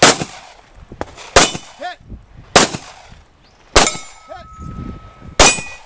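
Five semi-automatic pistol shots fired at a slow, steady pace, a second or so apart, each a sharp crack. A metallic ring from the steel targets hangs on after several of the shots.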